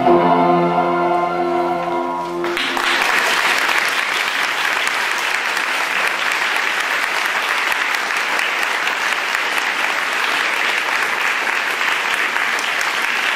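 The final held chord of a school chorus song cuts off about two and a half seconds in, and the audience applauds steadily.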